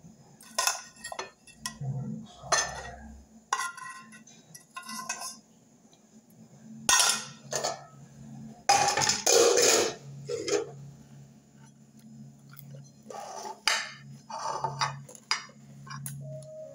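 Metal cooking pot and utensils clinking and clattering as food is dished out of the pot onto a plate: a series of sharp clinks with a short metallic ring, and a louder, longer clatter about nine seconds in.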